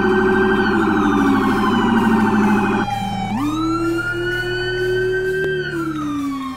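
Police car's electronic siren: a fast warbling tone, which about three seconds in switches to a slow wail that rises, holds, and then slowly falls away.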